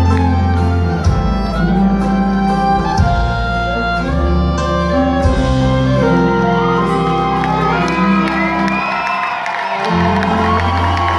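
Live country band playing an instrumental passage of the song, with strong sustained bass notes under melodic lead lines. The bass drops out for about a second near the end, then comes back in.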